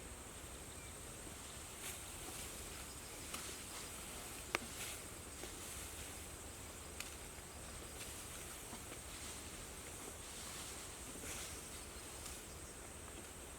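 Faint outdoor ambience: a low hiss with a thin, steady high-pitched tone, broken by scattered soft clicks and one sharper click about four and a half seconds in.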